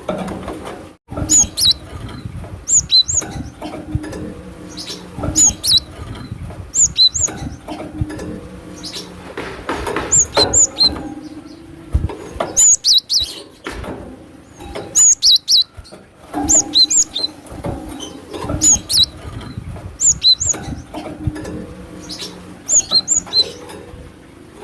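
Cinereous tit (glatik batu) calling: quick clusters of short, high chirping notes, repeated about every one to two seconds over low background noise.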